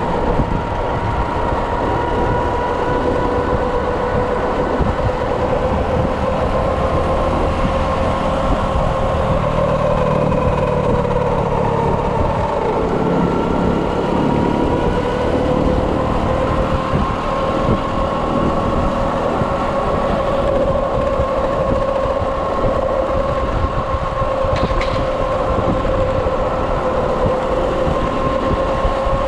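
Electric motor of a Kawasaki KLX electric conversion whining steadily while riding at around 50 km/h, over wind and road rumble. The whine dips slightly about halfway through, then climbs gently in pitch near the end as the bike speeds up.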